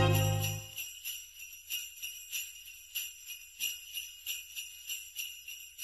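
The song's final low note dies away in the first moment, then jingle bells shake in a steady rhythm, about three shakes a second.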